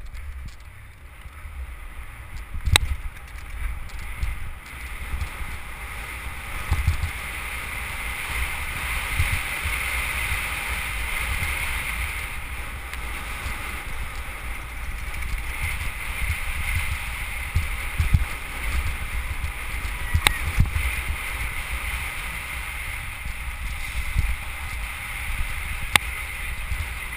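Downhill mountain bike ridden fast over rough dirt and grass: wind buffets the helmet-mounted microphone, over a steady hiss and the rattle of the bike, with a few sharp knocks as it hits bumps.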